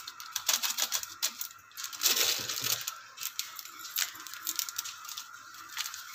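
Instant noodles in a pan of boiling water, bubbling with a fast, constant crackle of small pops and ticks; about two seconds in, a louder hissing rustle as the seasoning goes in.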